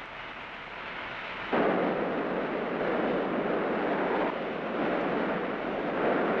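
Coal pouring down a coaling-tower chute into a steam locomotive's tender. A quieter noise builds, then a loud, steady rush starts suddenly about a second and a half in and holds.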